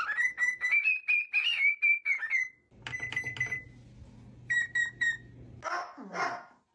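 Pet parrot whistling: a wavering whistle for a couple of seconds, then after a short break a few shorter whistled notes at the same pitch.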